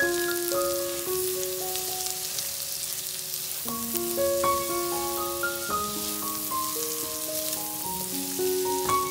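Diced potatoes sizzling in oil in a non-stick pan while a silicone spatula stirs them, a steady high hiss with small crackles. Background music of held, bell-like notes plays over it.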